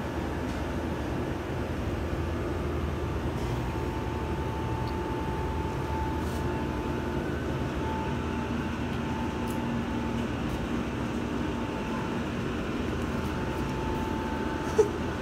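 Steady low rumble of background machinery, with a faint high hum that comes and goes and a single short sharp sound near the end.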